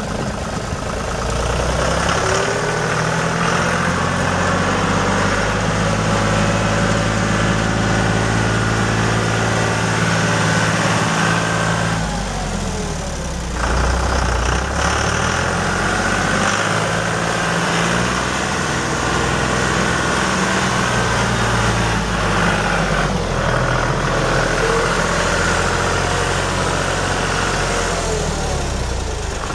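John Deere 5320 tractor's 2.9-litre four-cylinder PowerTech diesel running steadily as the tractor is driven about. Its engine speed shifts a few times, with a brief dip in level about twelve seconds in.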